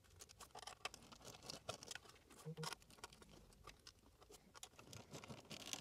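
Faint, scattered clicks and taps of a small screwdriver and wires being worked into the terminal screws of a plastic smoke detector base.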